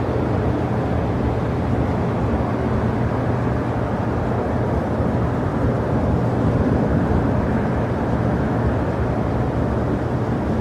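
Jet airliner engines running at the airport: an even, steady rumble with a low hum and no sudden changes.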